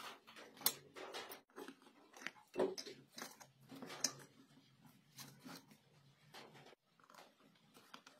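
Irregular small clicks and taps of hand work on electronic parts: an IGBT transistor being seated against an aluminium heatsink and a metal clamp and screw being fitted over it with a screwdriver.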